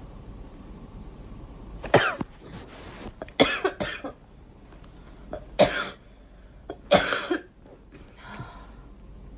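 A girl coughing in a string of bouts: a single cough about two seconds in, a quick run of three soon after, more coughs a second or so apart, the last one fainter.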